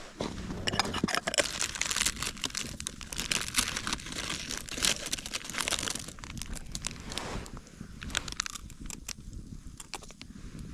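Plastic being crumpled and handled: dense, irregular crinkling, busiest for the first several seconds and then sparser.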